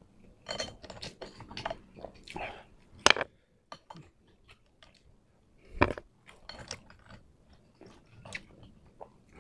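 Close-up chewing and mouth sounds of eating, with a metal spoon clinking sharply against a glass bowl twice, about three and six seconds in.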